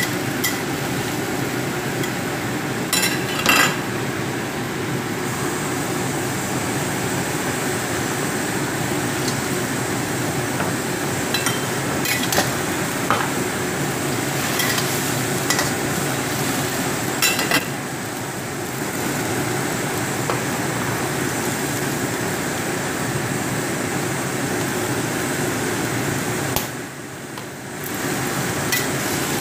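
Green bell pepper stir-frying in a stainless steel wok over a high gas flame: a steady sizzle, with a metal spatula scraping and clanking against the wok now and then. The sizzle dips briefly near the end.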